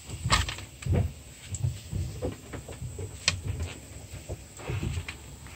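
Floured fish fillets laid one by one into a pan of onions frying in butter, with a faint sizzle under scattered knocks and clicks of handling.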